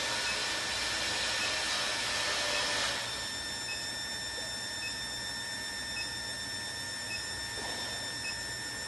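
JL-25KW induction melting furnace running, a steady whirring hiss with several thin high whines over it. About three seconds in the noise steps down a little, and faint regular blips then sound about once a second.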